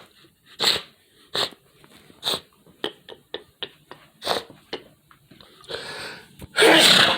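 A person sniffling with a string of short, sharp breaths through the nose, quicker for a moment in the middle. Then comes a drawn-in breath and a loud sneeze near the end.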